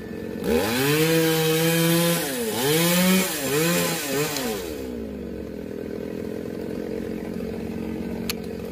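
Handheld petrol chainsaw revving and cutting through a tree limb for about four seconds, its engine pitch dipping and recovering several times as the chain bites into the wood, then falling back to a quieter steady sound.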